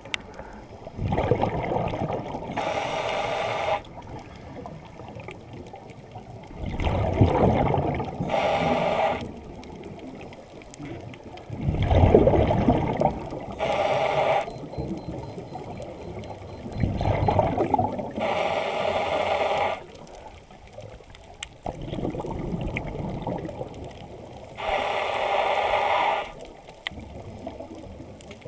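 Scuba diver breathing through a regulator underwater: about five slow breaths, each a hissing draw followed by a bubbling, buzzing exhale. The breaths come every five to six seconds, with quieter water noise between them.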